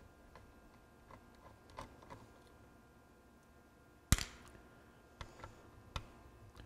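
Small metal clicks and taps of a screwdriver loosening a screw on the solenoid inside a vintage 8-track tape deck, with one sharp, loud click about four seconds in and two more clicks near the end.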